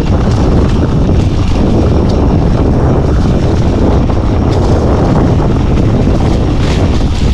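Wind buffeting a chest-mounted action camera's microphone while a mountain bike is ridden over a stony trail, steady and loud, with small clicks and rattles from the bike over the rocks.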